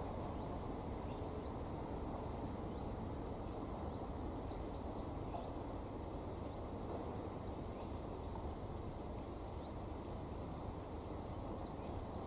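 Quiet rural outdoor ambience: a steady low rumble, with faint scattered high chirps from small birds.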